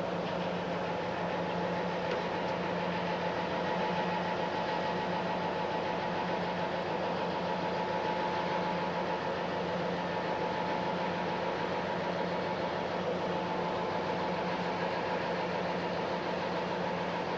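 ST44 (M62) diesel locomotive's two-stroke V12 diesel idling steadily with a constant low drone, the locomotive standing still.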